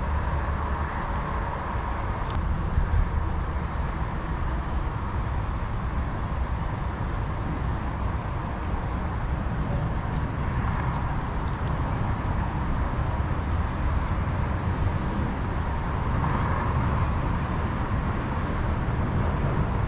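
Steady low rumble of distant road traffic from an elevated highway, with no distinct events standing out.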